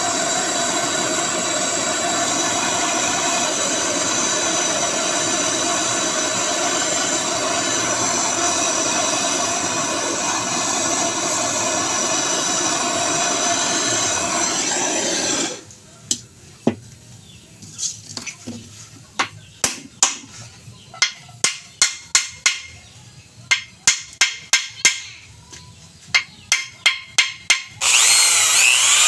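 Handheld gas torch on a canister burning steadily for about fifteen seconds, then cut off. A run of about twenty sharp taps follows, and near the end an electric drill starts up with a rising whine.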